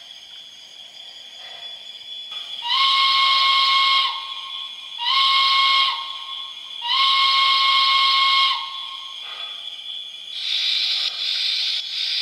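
Onboard sound system of an MTH SNCF 141P O-gauge model steam locomotive sounding its steam whistle in three blasts: short, shorter, then long, each rising into pitch and dropping at the end. Near the end a pulsing steam hiss starts.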